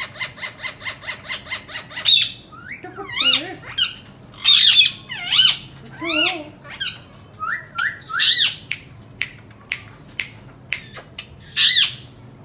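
Indian ringneck parrot calling: a quick run of short, even chirps, about seven or eight a second, for the first two seconds, then a string of separate harsh squawks and warbling calls that bend up and down in pitch.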